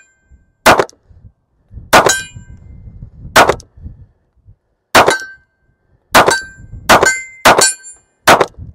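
Handgun shots striking steel targets, each sharp report followed by a short metallic ring. There are eight, about a second apart at first and coming faster toward the end.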